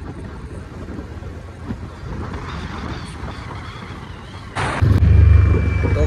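Wind buffeting the microphone over a steady vehicle rumble while riding. About four and a half seconds in, the sound switches abruptly to a louder, steady low drone.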